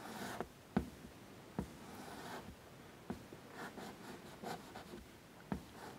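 Chalk tapping and scratching on a blackboard while small marks are drawn: a few sharp taps with brief soft scrapes between them.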